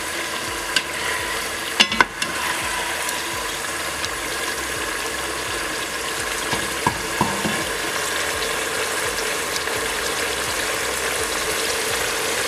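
Cubes of beef frying in sunflower oil in a pot, a steady sizzle, with a couple of sharp clicks about two seconds in.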